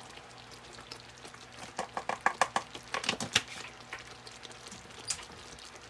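Thick chicken korma gravy bubbling in a frying pan on high heat: a low simmer with a quick run of small pops and clicks about two to three and a half seconds in, and one more about five seconds in.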